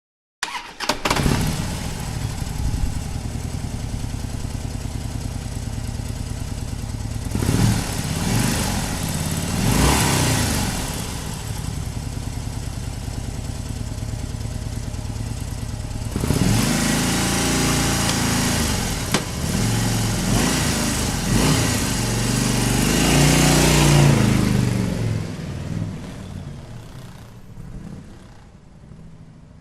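Harley-Davidson motorcycle V-twin engine comes in abruptly about half a second in and idles steadily, with two short throttle blips around 8 and 10 seconds. From about 16 seconds it is revved up and down repeatedly, then the sound falls away over the last few seconds.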